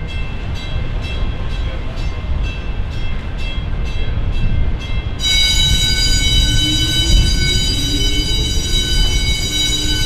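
Lift bridge warning bell ringing in quick, even strokes, about two or three a second, signalling that the span is about to lift. About halfway through, a steady shrill warning tone cuts in and holds, over a low machinery rumble, and a low hum rises in pitch near the end.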